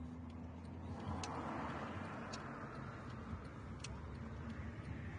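Low, steady rumble of a car rolling slowly, with a wash of road noise swelling about a second in and faint ticks every second or so.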